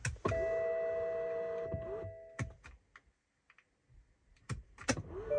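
An electronic chime tone, several pitches sounding together, starts just after a click and fades over about two seconds. A few sharp clicks follow, and the chime sounds again near the end.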